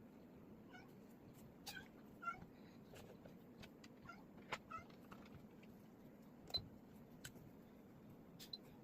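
Faint, short, high-pitched animal calls repeating irregularly, about a dozen in all, mixed with scattered sharp clicks. The loudest click comes about two thirds of the way through.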